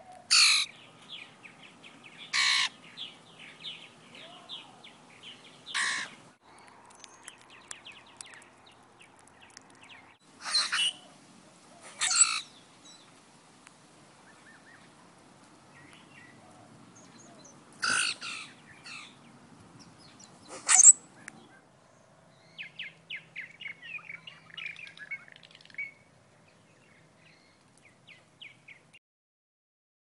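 Grackle giving loud, harsh calls, about seven of them several seconds apart, followed near the end by a quick run of short chirps.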